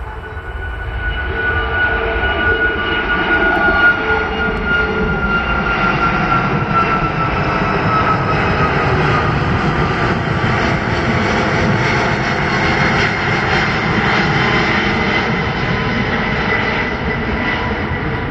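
Airbus A340-500's four Rolls-Royce Trent 500 turbofans at climb power after takeoff, the jet noise swelling loud as the airliner passes overhead. A whine in the noise falls slowly in pitch as the plane goes by, and the sound eases a little near the end as it flies away.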